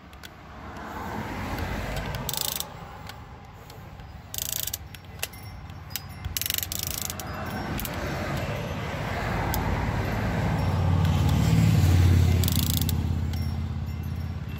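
Electric motors and gearboxes of a Double E 1/16-scale RC excavator whirring as the boom and bucket move, the whine rising and falling in pitch, with several sharp clicks. A low rumble swells to its loudest near the end.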